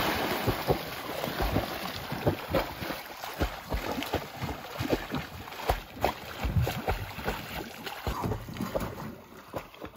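Canoe on the water: irregular knocks and splashes of hull and paddles over a sloshing hiss, strongest in the first second.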